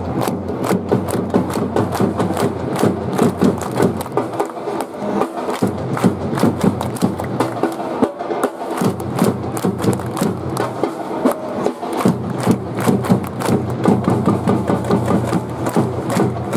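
Football supporters chanting together in the stands to a rhythm of drumbeats and clapping.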